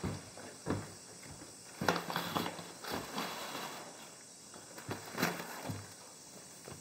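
Footsteps and the crinkling of plastic shopping bags being carried and handled, with a few irregular taps and thumps.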